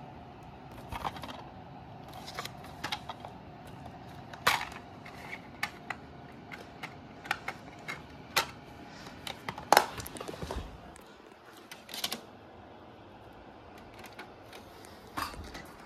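Plastic DVD keep case and disc being handled: a string of sharp clicks and snaps as the case is opened and the disc is popped off its hub, then a few more clicks as the disc goes into a DVD player's open tray.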